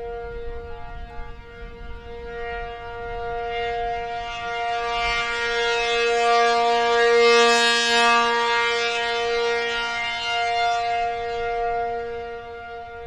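ACA P-50 rotating outdoor warning siren sounding its steady alert signal: two pitches held together as a chord. It swells to its loudest about halfway through and then fades as the rotating horn turns toward and away.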